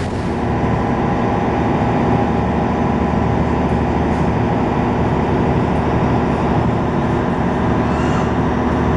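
A river-cruise water bus's engine running at a steady cruising speed, heard from inside the passenger cabin as an even drone with several steady tones.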